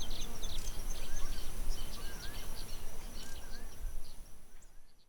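Outdoor nature ambience: many small birds chirping, with a steady high insect trill and a low rumble underneath, fading out near the end.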